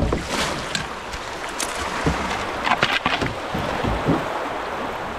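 Shallow creek current rushing steadily around a canoe, with the splashes of paddle strokes. There are a few sharp splashes or knocks about three seconds in.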